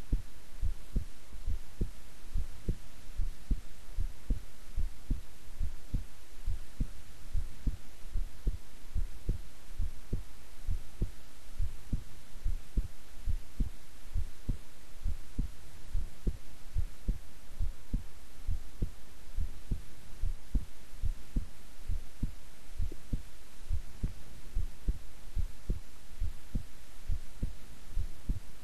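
A young woman's heart beating at rest, a steady, even rhythm of low thumps over a faint hiss.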